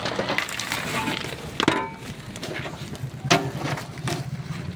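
Irregular knocks and clatter of hard objects, loudest about a second and a half in and again just past three seconds.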